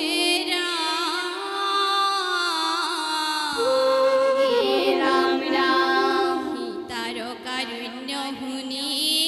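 Women singing an Assamese dihanam devotional song unaccompanied, in long drawn-out, ornamented phrases. A second, lower voice line comes in about three and a half seconds in.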